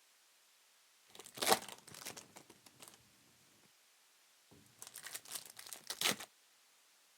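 Plastic trading-card pack wrappers crinkling and tearing open, in two bursts of crackling.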